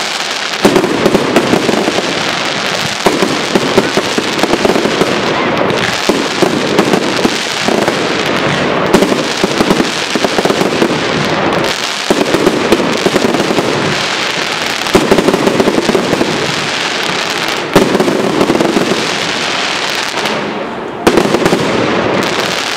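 Aerial fireworks display: a dense, continuous crackle from glittering crackling-star shells bursting overhead, punctuated by many sharp reports of shell bursts and launches. Several louder bangs stand out, one about eighteen seconds in and another near the end.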